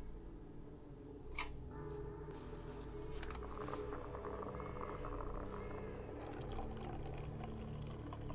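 Coffee from a moka pot pouring into a metal mug near the end, after a single sharp click about a second and a half in.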